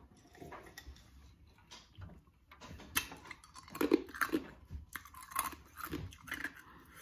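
Ice being crunched between the teeth: a run of sharp, irregular crunches and chews, quiet at first and densest from about three seconds in.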